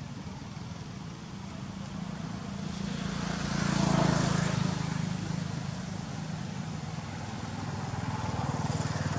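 A motor vehicle's engine passing by, growing louder to a peak about four seconds in and then fading, with its hum rising again a little near the end.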